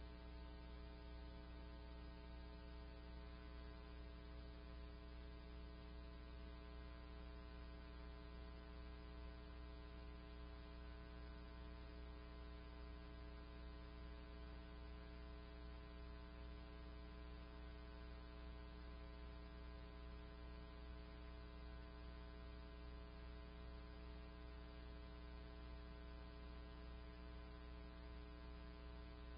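Faint, steady electrical hum made of many even tones, with no other events.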